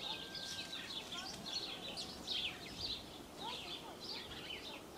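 Many small birds chirping and twittering without a break, a continuous chorus of quick, high chirps.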